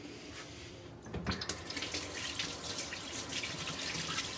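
Water tap turned on about a second in and running into a sink, plausibly to wash peanut butter off.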